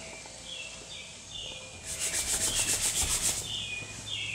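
A bare hand rubbing quickly back and forth over the Mercedes-AMG CLA45's clayed bodywork, about six strokes a second for a second and a half, starting about two seconds in: the dry rub of a palm over a smooth, contaminant-free surface.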